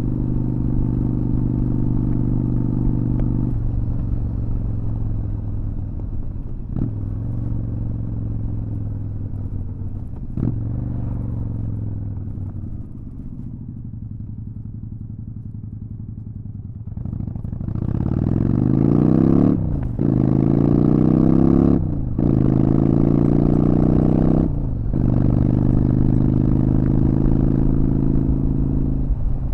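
Honda Shadow VT600's V-twin engine under way. The revs fall and it goes quieter about halfway through as the bike slows, then it pulls away, rising in pitch through three quick upshifts before settling into a steady cruise. Wind rumbles on the microphone throughout.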